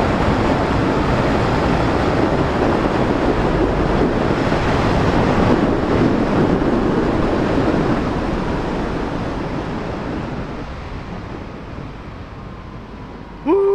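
Heavy wind rush over a motorcycle rider's microphone at very high speed, with the engine buried beneath it. The rush eases off over the second half as the bike slows. Just before the end a louder engine note cuts in and falls in pitch.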